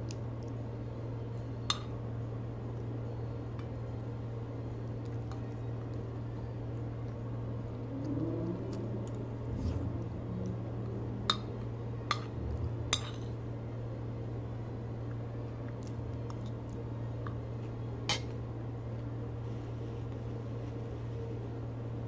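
Metal spoon and fork clinking against a dinner plate while eating: about five sharp clinks, three of them in quick succession near the middle. A steady low hum runs underneath.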